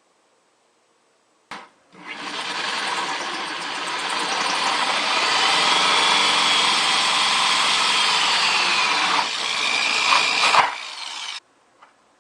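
Power drill cutting a hole through a plastic bucket. It starts about two seconds in after a click, runs steadily with a whine for about nine seconds, and stops near the end.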